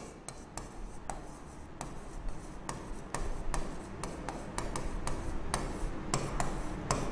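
Stylus writing on an interactive touchscreen board: a string of irregular light taps and scrapes as words are written.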